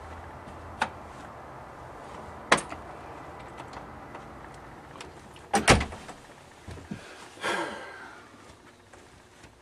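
A door swung shut with a heavy double thud and latch a little past halfway, after a few sharp clicks and followed by lighter knocks and a brushing sound. The low outdoor hum drops away once it is closed.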